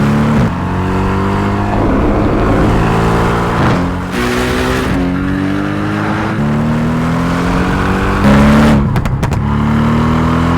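Mercedes-AMG GT R's twin-turbo V8 accelerating hard. Its pitch climbs and drops back at each upshift, about half a dozen times.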